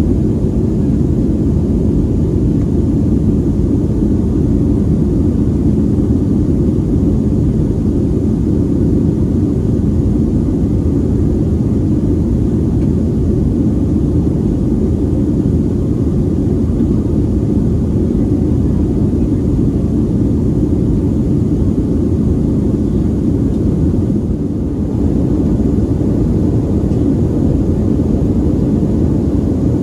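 Steady cabin drone of a Boeing 737-400 in flight, heard inside the cabin by the wing: its CFM56-3 turbofans and the rushing airflow make a dense, low noise, briefly easing slightly about 25 seconds in.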